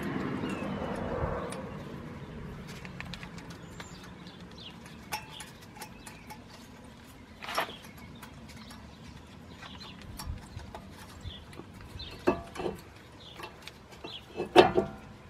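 Sharp metallic clicks, a few scattered and the loudest near the end, as steel pad slider clips and brake pads are snapped into the front brake caliper bracket of a 2011 Nissan Quest. Birds call faintly in the background.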